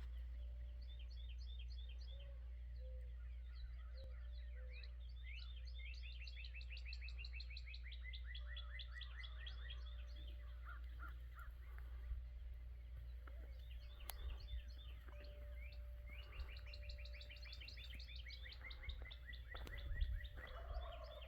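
Songbirds singing in a morning chorus: repeated rapid high trills and chirps, some series falling in pitch, over a steady low rumble.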